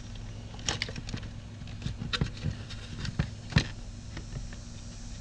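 Scattered small clicks and taps of fingers and tools working a stubborn wire connector loose from a circuit board, the sharpest click about three and a half seconds in, over a steady low hum.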